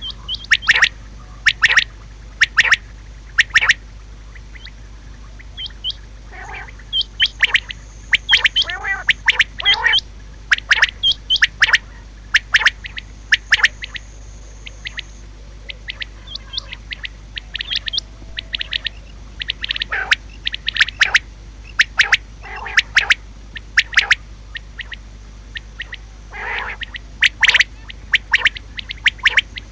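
Female common quail calling: short, sharp notes in quick runs of two to several, repeated with brief pauses between runs, over a steady low hum.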